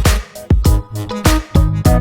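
Background music with a steady beat: funk-style drums, bass and melody.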